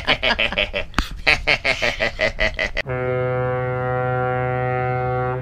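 A person's voice laughing in quick bursts, cut off abruptly about three seconds in by a single low, brassy, horn-like musical note held steadily: the opening sting of an intro jingle.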